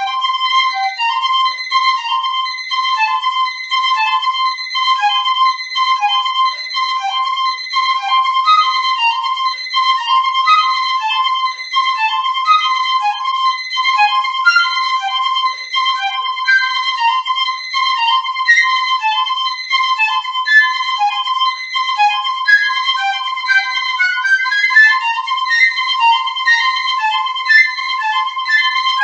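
Solo piccolo playing a fast, busy passage: rapid notes that keep returning to one repeated high pitch, with a quick upward run near the end.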